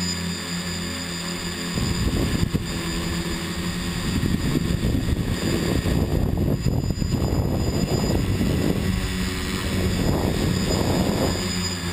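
Multirotor drone's electric motors and propellers whining steadily, heard from the onboard camera. Irregular low rumbling rises underneath through most of the middle and drops away near the end.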